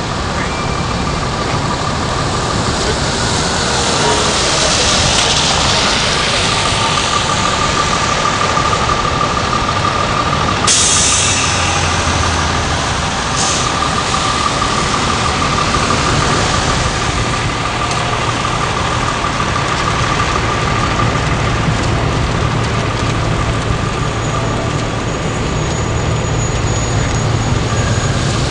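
New York City subway F train running, a loud steady rumble with a constant high whine. Two sudden bursts of hissing air break in, about 11 and 13 seconds in, the first lasting a second or two.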